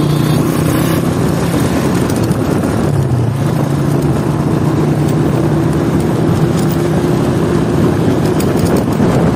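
Old Honda motorcycle engine running steadily while riding, its low, even note over a constant rush of air and road noise. The engine note eases briefly about two seconds in, then picks up again.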